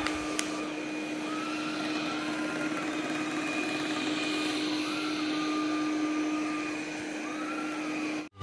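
Robot vacuum running on medium suction: a steady motor hum and whir, with a few faint short rising-and-falling whines now and then. It cuts off suddenly near the end.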